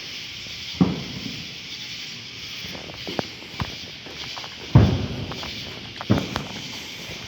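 Distant fireworks going off: three deep booms with short rolling tails, the loudest near five seconds in, and a few fainter cracks between them, over a steady high hiss.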